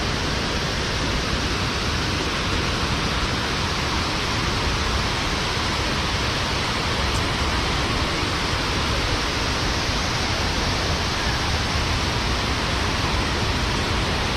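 Kuang Si waterfall: a steady rush of falling water, even and unbroken.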